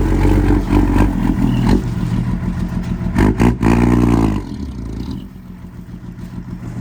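Dump truck engine running steadily, revving up and back down about three to four seconds in, then dropping to a quieter idle.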